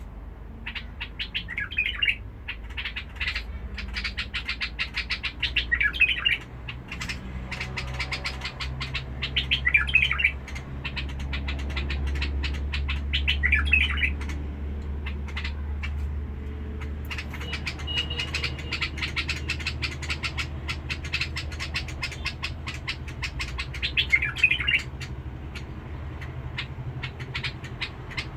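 A bulbul singing short, rough-toned phrases at intervals of a few seconds, over a dense run of rapid clicks and a steady low hum.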